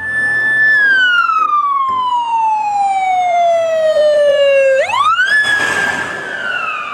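Ambulance siren wailing: a single tone that falls slowly over about four seconds, then sweeps quickly back up and begins to fall again. A rush of noise comes as the ambulance passes close by, about five seconds in.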